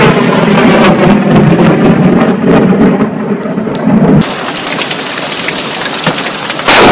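Loud thunder rumbling over heavy rain from a close lightning strike, cutting off about four seconds in to steady rain. Near the end a sudden, very loud thunderclap from a strike close enough that its shockwave is felt.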